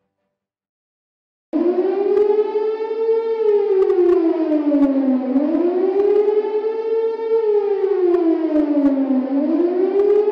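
Air-raid siren wailing, its pitch rising and falling in slow cycles of about four seconds; it starts abruptly about a second and a half in, after silence.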